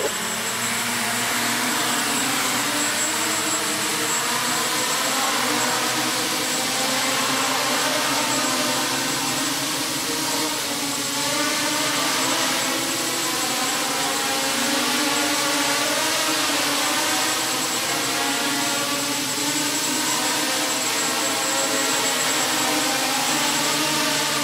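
Two small quadrotors flying, their propellers buzzing together in a layered whine whose several pitches keep wavering up and down as the motors change speed.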